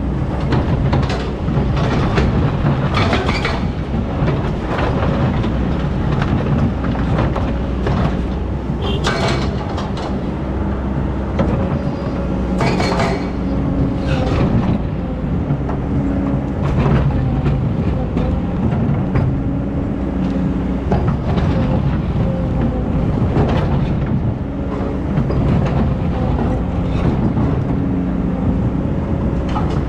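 Hydraulic excavator's diesel engine running steadily under load, its pitch shifting as the hydraulics work, with several sharp metallic clanks and scrapes from the bucket and machinery.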